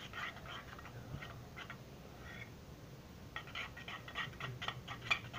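Glue-and-borax slime being stirred while it is still sticky: faint wet, sticky clicking and squelching in short runs, densest in the second half.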